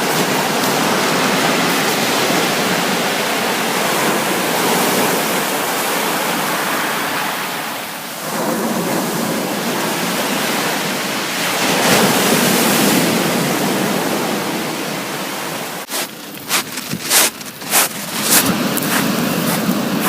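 Sea waves breaking and washing in, swelling and easing in a steady roar. A run of sharp clicks comes near the end.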